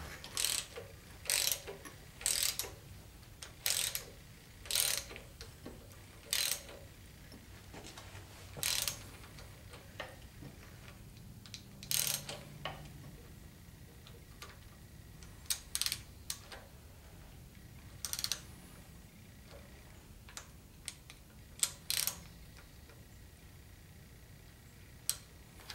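Hand ratchet clicking in short spurts as the rocker arm adjusting nuts on a Chevy 350 small-block are turned, the rocker arms being set. The spurts come about once a second at first, then more sparsely.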